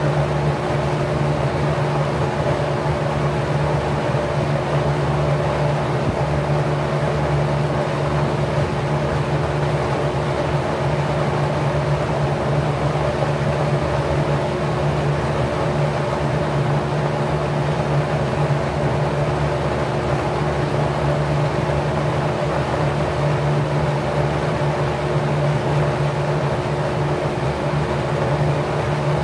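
Packard 99319 single-speed 1/5 hp electric motor spinning a 20-inch four-blade, 27° pitch LAU propeller at about 1050 rpm: a steady hum over an even rush of air.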